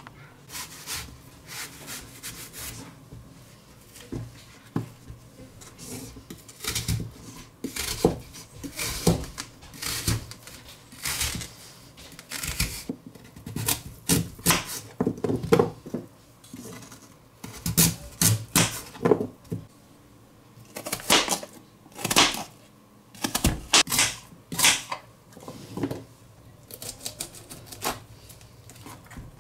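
Kitchen knife cutting raw pumpkin into cubes on a plastic cutting board: irregular clicks and taps as the blade strikes the board, with the crunch of the firm flesh being cut. Near the end the knife cuts into a head of cauliflower.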